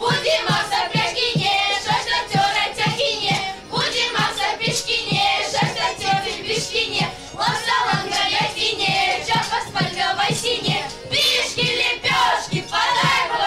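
A group of girls singing a Christmas caroling (koliada) song together, clapping a steady beat of about two to three claps a second.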